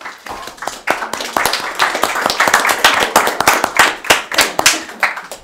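A small group applauding with dense, irregular hand claps. The clapping builds over the first second and stops near the end.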